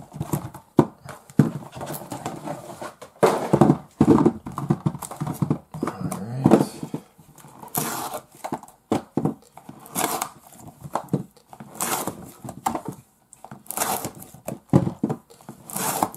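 Small cardboard booster packs being handled, slid and set down on a table one after another: a run of irregular taps, knocks and scuffs, with a few heavier thuds.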